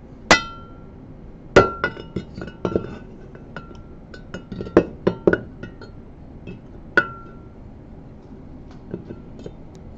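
Metal parts of a Bausch & Lomb StereoZoom 7 microscope clinking and knocking as the lens assembly is fitted back into its housing: a string of sharp clicks, several with a short metallic ring, the loudest at the very start, in a cluster between about one and a half and five seconds in, and once more about seven seconds in.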